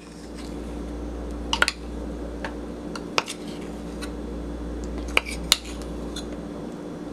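Kitchen utensil clicking and scraping against a measuring cup as thick peanut butter is scooped into a plastic mixing bowl: a handful of light clinks a second or two apart, over a steady low hum.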